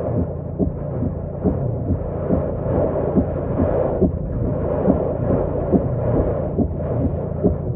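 Hurricane wind and rain buffeting a vehicle, heard from inside: a steady low rumble broken by frequent dull thumps, about two a second.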